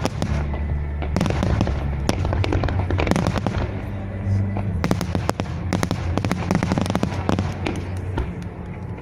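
Japanese fireworks shells bursting and crackling in quick, dense succession. The crackle thins briefly about four seconds in and fades toward the end, with music playing underneath.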